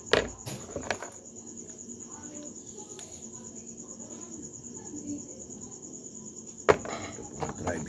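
Metal parts of a disassembled spinning fishing reel clicking and knocking as they are handled on a wooden workbench: a few sharp clicks in the first second, and the loudest knock near the end. Crickets chirr steadily in the background as a continuous high trill.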